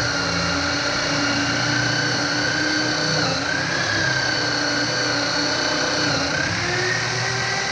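Electric drill spinning a jeweller's buffing wheel while polishing knife scales with buffing compound. The motor's steady whine sits lower in pitch for most of the time and rises again near the end.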